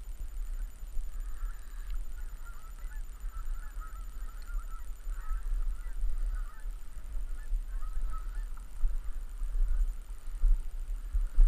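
A flock of geese honking, many short overlapping calls, over a steady low rumble.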